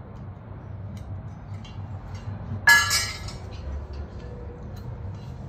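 Metal parts of a motorcycle wheel chock being handled: light clicks of the pin and cradle, then one sharp clank that rings briefly nearly three seconds in as a metal cradle piece is set down.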